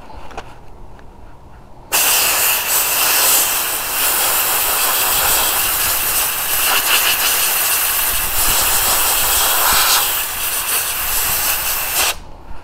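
Pressurized abrasive blaster's nozzle firing baking soda with compressed air at a rusty steel bar. A loud, steady hiss starts abruptly about two seconds in and cuts off about ten seconds later when the trigger is released.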